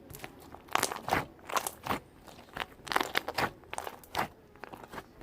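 Gold pearl slime being squeezed and stretched by hand, making an irregular run of sharp sticky pops and crackles as trapped air bursts.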